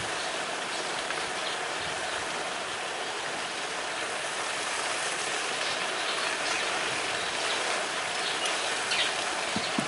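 Steady rushing of flowing river water, an even hiss with no rhythm or pitch.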